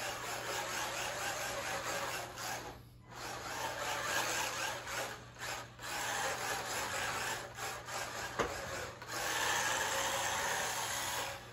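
A 1/16-scale RC drift car's small 380-size electric motor running and its tyres scrubbing across carpet as it slides in circles. The sound comes in stretches, dropping away briefly about three seconds in, around six seconds and near nine seconds as the throttle is let off, with one sharp click just before the last drop.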